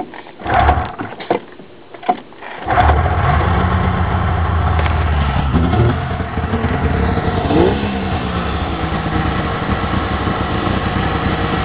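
1996 Polaris XLT 600 snowmobile's two-stroke triple cold-started without choke: a few short bursts as it turns over, then it catches about three seconds in and settles into a steady idle. Its pitch briefly rises once about eight seconds in.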